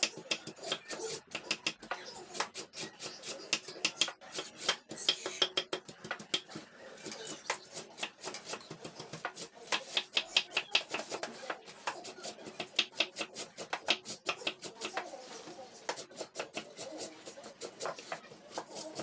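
Kitchen knife chopping cabbage on a cutting board: quick runs of sharp knocks with short pauses between them.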